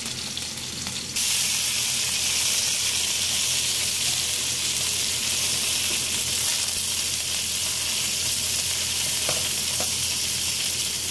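Okra and sliced onions sizzling steadily as they fry in oil in a wok, turned now and then with a spatula, frying until their sliminess cooks off. The sizzle gets suddenly louder about a second in.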